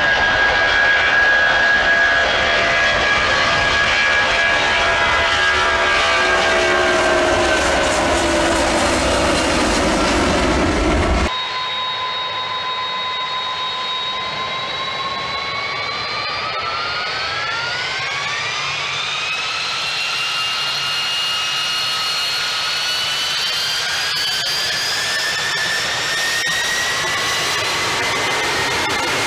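Boeing 757 jet engines at high power as the airliner rolls along the runway: a loud roar with whine tones that slowly fall in pitch. About 11 seconds in it cuts off abruptly to a Boeing 747-200's General Electric CF6-50 turbofans spooling up, their whining tones climbing steeply and then rising slowly as power builds.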